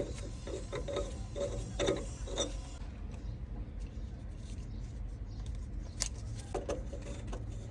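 Plumbing fittings being handled and worked by hand: a quick run of small clicks, creaks and knocks, then a single sharp click about six seconds in and a few more after it, over a steady low rumble.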